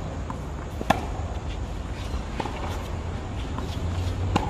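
Tennis balls being hit with rackets and bouncing on a hard court: several sharp pops, the loudest about a second in, over a steady low rumble.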